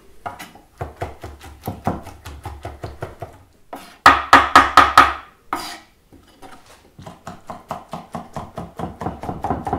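Chef's knife chopping hot cooked duck livers by hand on a wooden chopping board: quick, even strokes, several a second, in three runs with short pauses between them, the loudest run a little before the middle.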